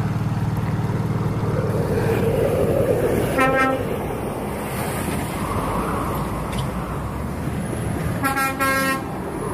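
Truck engine running, with two horn blasts: a short one about three and a half seconds in and a longer one near the end.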